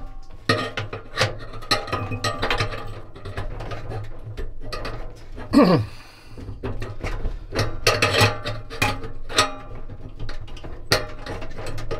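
Scattered metallic clicks and knocks from a Fisher & Paykel dryer's stainless steel drum and its centre bearing hub as a hand grips and works the shaft through the drum, over a steady low hum.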